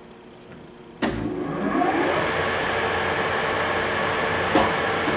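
A Samstar 40x160 geared-head engine lathe starts up about a second in with a sudden clunk. Its headstock spins up with a short rising whine, then runs steadily with a hum and gear whine. A single click comes near the end.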